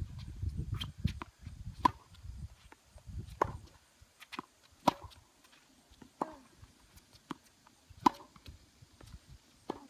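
Tennis ball struck by rackets and bouncing on the court during a rally: sharp pops roughly every second and a half, with fainter bounces between them.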